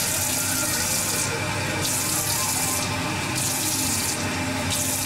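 Cold water running from a kitchen tap into a glass measuring jug, a steady hiss that dulls briefly three times as the stream shifts.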